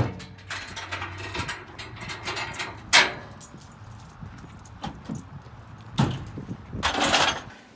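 Handling noise: sharp clicks and knocks, about three seconds apart, with light rustling and a short burst of rustle near the end.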